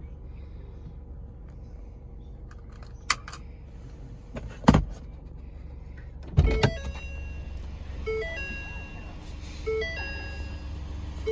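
Inside a 2018 Ford Mustang EcoBoost: a steady low hum, a few light clicks, then two loud thumps about four and a half and six and a half seconds in. After the second thump, the dashboard sounds electronic warning chimes, a short run of stepped notes repeating about every second and a half.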